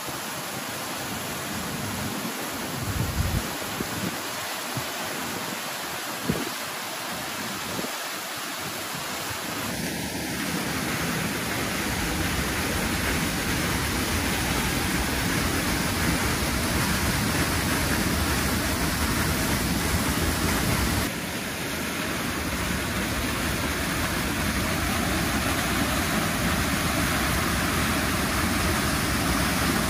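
Steady rushing noise with no tones, with gusts of wind buffeting the microphone during the first ten seconds or so.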